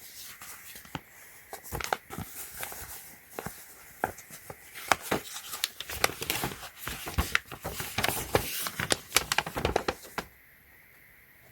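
Paper instruction leaflet being handled and unfolded: irregular crinkling and rustling with sharp crackles, stopping abruptly about ten seconds in.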